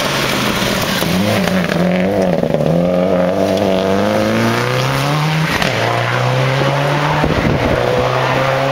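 Subaru Impreza rally car's flat-four engine working through a gravel hairpin. The engine pitch rises and falls for the first few seconds, dips about five and a half seconds in, then climbs steadily as the car accelerates away.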